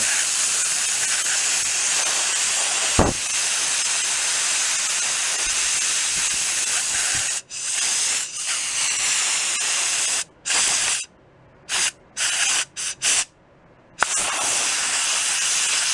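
Compressed-air blow gun hissing as air is blown through its bent metal nozzle into a glue-filled crack in a wooden snare drum shell, forcing wood glue into the crack. It blows steadily for several seconds, then in a run of short blasts of about a second or less, then steadily again near the end. A brief low knock sounds about three seconds in.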